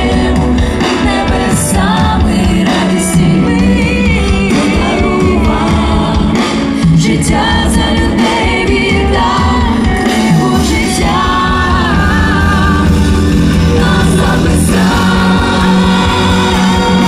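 Live worship band and a group of singers performing a Christian worship song together, voices over guitar, keyboard and drums.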